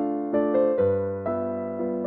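Background piano music: a gentle melody of single notes over lower bass notes and chords.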